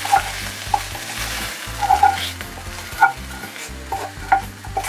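A wooden spatula scraping fried vegetables out of a frying pan into a pot, knocking sharply against the pan about five times, over a steady sizzle from the cooking pot.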